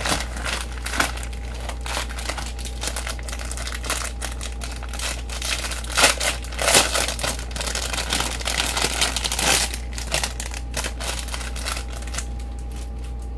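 Crinkly packaging being handled and crumpled, in irregular bursts of crackling that are loudest about six to seven seconds in.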